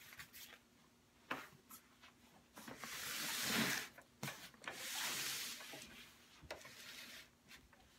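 Rubbing and scraping of a car seat cover and seat, with a few light knocks and two longer swells of rubbing about three and five seconds in, as the cover's straps are pushed through behind the seat and the seat is turned around on the bench.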